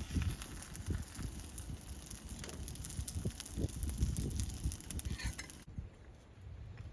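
Ajillo oil sizzling in a small pan, with irregular low knocks and handling noise; the hiss cuts off abruptly near the end.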